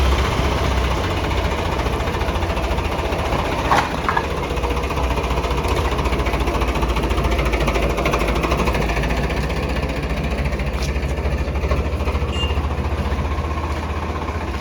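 Tractor diesel engine idling steadily, with a couple of short metallic knocks about four seconds in.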